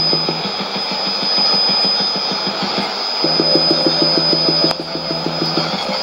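Shortwave test transmission from the Nauen transmitter on 5990 kHz, heard through a Sony ICF-2001D receiver. A rapid pulsing buzz, about ten pulses a second, drops out briefly about three seconds in and resumes. It sits over static hiss and a steady high whistle.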